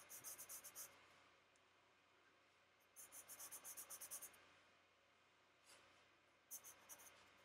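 Faint, quick back-and-forth scratching of charcoal on sketchbook paper, in three short runs of strokes: one at the start, one a little after three seconds in, and a brief one near the end.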